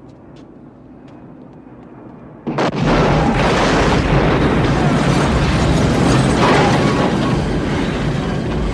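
A house exploding: a sudden loud blast about two and a half seconds in, followed by a long, heavy rush of noise with deep rumble as the blast and flying debris carry on to the end.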